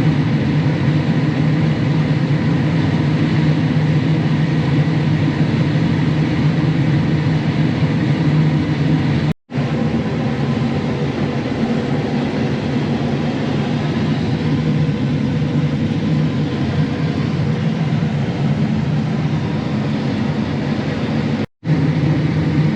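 John Deere S670 combine harvester running steadily while harvesting corn, a loud even machine hum. The sound cuts out abruptly twice for a split second.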